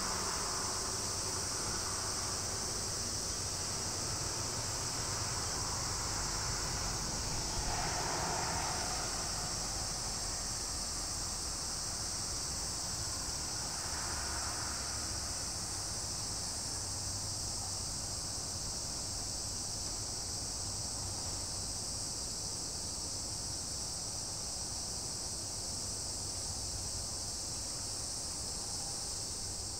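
A steady, high, shrill insect chorus with a low steady rumble underneath.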